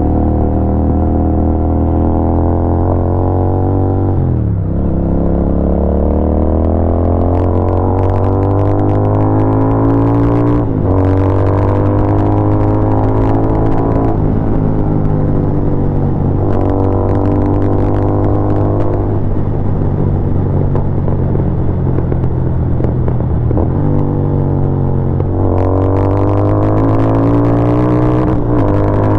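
Royal Enfield Continental GT 650's 648 cc parallel-twin running through Barrel Exhaust Atoms silencers, its revs rising and falling several times. Sharp crackles and pops come from the exhaust in bursts in the middle and near the end as the revs drop, worked with the throttle.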